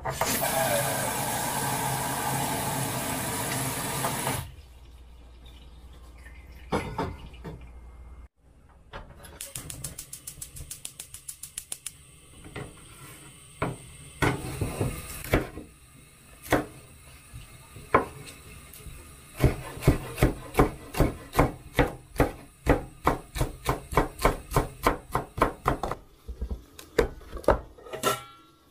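Kitchen preparation sounds: water running for about four seconds, then a quick run of light clicks. After that comes a long series of sharp knocks on wood, steadying to about two to three a second in the second half, as of a knife chopping on a wooden cutting board.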